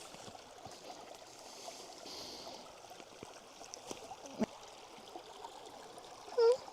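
Shallow mountain river running over stones, a steady faint rush and trickle of water, with a few small knocks and a brief voiced exclamation near the end.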